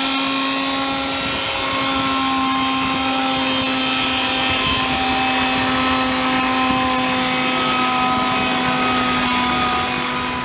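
Portable on-site machining machine running steadily, its motor and drive giving a constant hum with several steady whining tones above it. The sound cuts off abruptly at the end.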